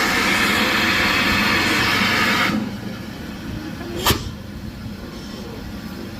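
Steam locomotive venting a loud hiss of steam that cuts off suddenly about two and a half seconds in, then a single sharp clank about four seconds in as the engine couples up to its carriages.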